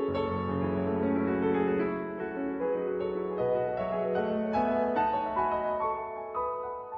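Background piano music, a gentle melody of notes changing quickly.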